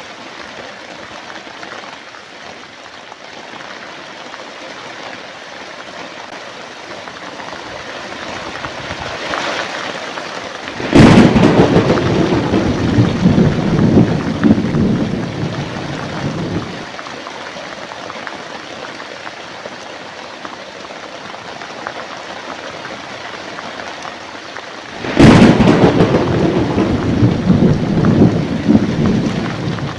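Steady heavy rain with two loud thunderclaps, one about a third of the way in and one near the end, each cracking sharply and then rumbling for several seconds.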